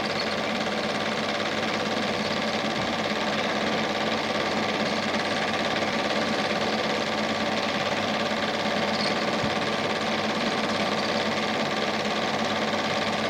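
Standard 8 cine projector running steadily with an even mechanical whir, the original film being silent.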